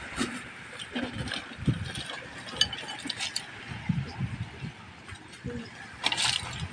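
Clam shells clicking and clacking as they are handled and worked open with a small metal tool, a string of irregular sharp clicks and knocks, with a brief scraping rustle about six seconds in.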